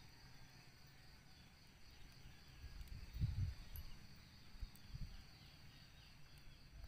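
Faint night-time chorus of insects, a steady high-pitched trill, over a low rumble that swells briefly about three seconds in and again a couple of seconds later.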